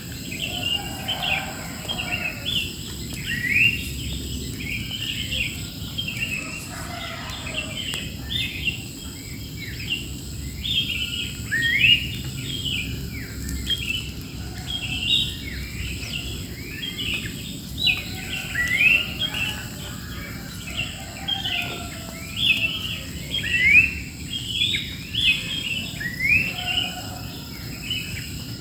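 Many birds chirping and calling over one another in a busy morning chorus, with a steady high insect drone underneath.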